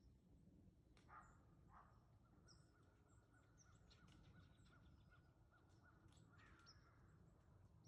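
Near silence with faint wild birdsong: two short calls about a second in, then a long run of quickly repeated notes, with scattered high chirps.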